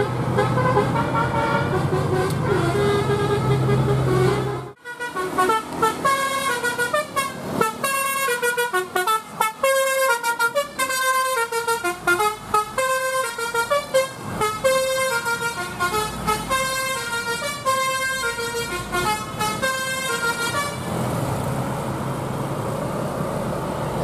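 Basuri telolet horn on a Mercedes-Benz tour bus playing a quick multi-note tune, several trumpets sounding together with the notes changing several times a second. Before it, a steady low drone cuts off abruptly about five seconds in. Plain traffic noise is left near the end.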